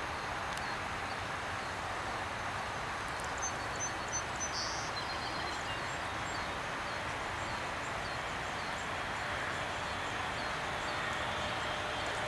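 McDonnell Douglas MD-80's Pratt & Whitney JT8D engines at takeoff power on the runway, heard from a distance as a steady rush of noise that grows slightly louder near the end as the jet rolls closer. A few short, high chirps sound about three to five seconds in.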